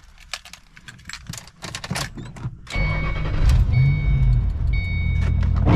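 Ford Mustang (S197) cold-starting in the cabin: a few small clicks, then about three seconds in the engine fires, flares up briefly and settles into a steady idle. A dashboard warning chime beeps on and off over it.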